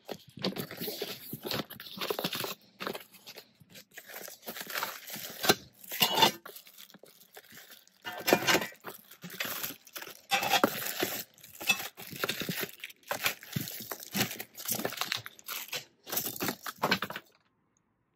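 Cardboard shipping carton being slit open with a utility knife and its flaps and packing pulled about, in irregular bursts of scraping and tearing. The sound cuts off near the end.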